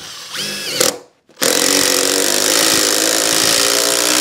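Power drill driving a 4-inch screw down through the thermal break of an aluminium bifold door sill. A short burst with a brief rising whine comes first, then the drill runs steadily from about a second and a half in until it stops at the end.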